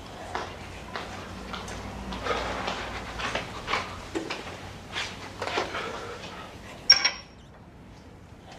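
Footsteps and light clicks and rustles as a cigarette pack is handled, then a sharp strike about seven seconds in as a cigarette is lit.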